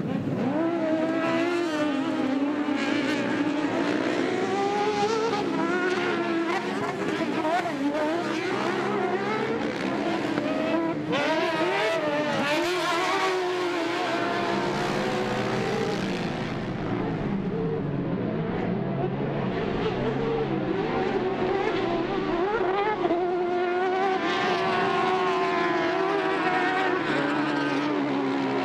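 Several racing UTV engines revving hard at once, their pitch rising and falling with throttle and gear changes as they race on the dirt track.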